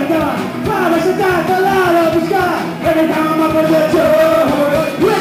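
Live rock band playing loud electric guitars, with several voices singing together into microphones over it.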